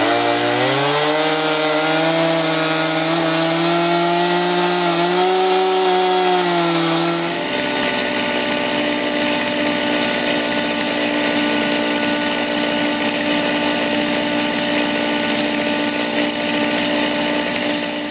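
A chainsaw revs up over the first second and runs at high speed, its pitch dipping slightly, cutting into a maple trunk. It stops about seven seconds in. Under it and after it, a shop-vacuum bee vac runs with a steady whine and rush of air, sucking up bees.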